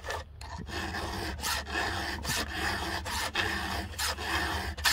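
Round chainsaw file rasping across the cutter teeth of a chainsaw chain in repeated hand strokes, sharpening the chain.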